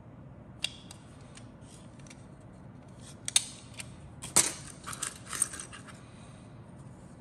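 Hard plastic model-kit parts clicking and clattering as they are handled and set down on a cutting mat. One click comes about half a second in, then a cluster of sharper clicks and knocks between about three and six seconds, the loudest near four and a half seconds.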